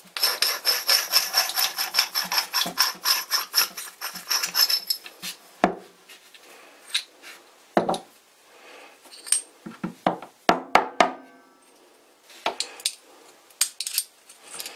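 Metabo Futuro keyless drill chuck sleeve twisted by hand, giving a rapid run of rasping metal clicks for about five seconds. Then scattered clinks and knocks of the steel chuck parts being pulled apart and set down on the bench.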